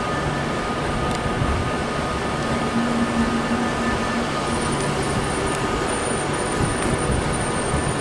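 Virgin Class 390 Pendolino electric trains: a steady, loud mechanical rush with thin steady whining tones from a standing train's onboard equipment, while another Pendolino pulls out of the platform.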